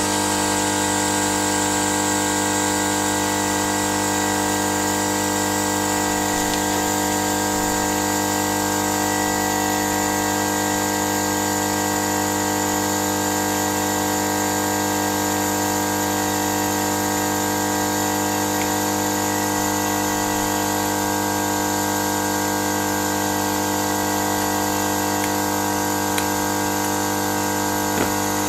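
Steady electrical hum with an airy hiss from a running hot-air rework station's air pump, unchanging throughout, with a few faint ticks of metal tweezers against the chip near the end.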